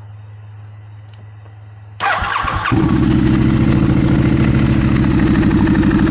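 Triumph Scrambler parallel-twin motorcycle engine being started: a faint steady hum, then about two seconds in the starter cranks briefly and the engine catches within a second and settles into a steady idle.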